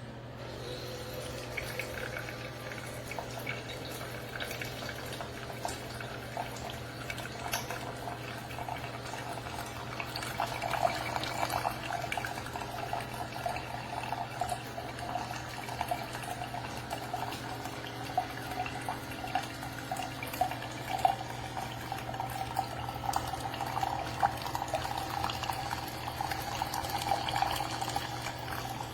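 Keurig K-Mini single-serve coffee maker brewing, with hot coffee streaming into a cup over a steady low hum; the pouring grows fuller about ten seconds in.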